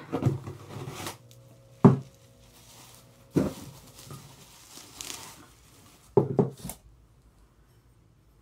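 Two ceramic bowls being taken out of their packaging: paper and cardboard rustling, with a few sharp knocks and clacks as the bowls and box are handled, the last two close together about six seconds in.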